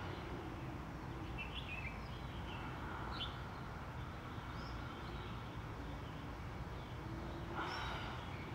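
Quiet garden ambience: a steady low background rumble with a few short, faint bird chirps scattered through it.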